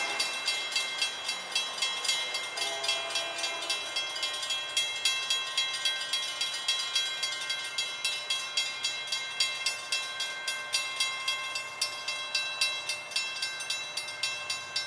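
Railroad grade-crossing warning bells ringing in a rapid, even rhythm of about three strikes a second while the crossing gates come down, warning of an approaching train.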